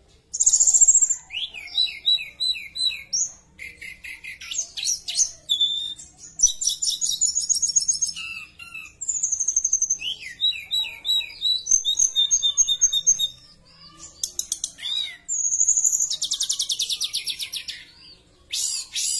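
Caged male tledekan (blue flycatcher) singing a long, varied song: quick runs of downslurred notes, trills and high whistles with short pauses, and a fast buzzy rattle near the end.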